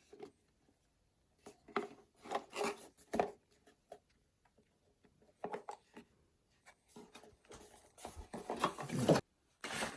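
Hands handling a camera's packaging and parts: intermittent rubbing, scraping and small clicks with short pauses, busiest and loudest near the end.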